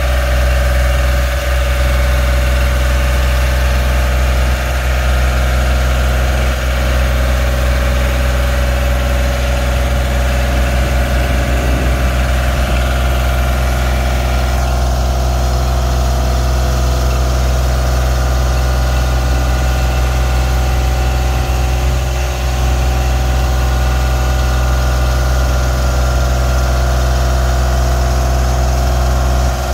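Genie S-40 boom lift's engine running at a steady speed while the boom is operated from the platform.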